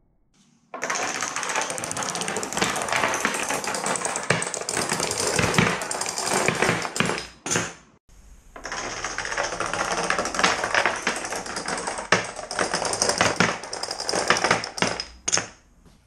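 A long chain of steel padlocks toppling like dominoes: a rapid, continuous clatter of metal padlocks knocking into one another and onto a wooden table. It runs for about seven seconds, stops briefly about eight seconds in, then starts again for another seven seconds.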